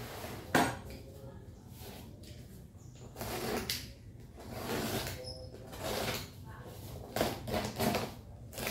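Cardboard box being cut open with a utility knife: several short scraping, rustling strokes of the blade through packing tape and cardboard, after a sharp knock about half a second in.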